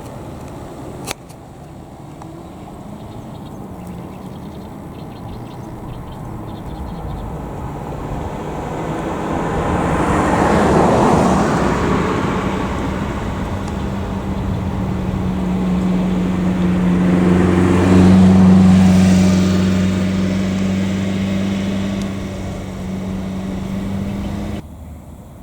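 Motor vehicles passing by on a road: one swells and fades around the middle, then a second passes with a steady low engine hum, and the sound cuts off suddenly near the end.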